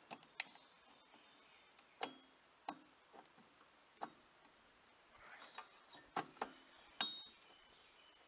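Light, irregular clicks and metallic clinks as a go-kart torque converter's bottom driven pulley is spread open by hand and the drive belt is worked onto it; the sharpest clink, about seven seconds in, rings briefly.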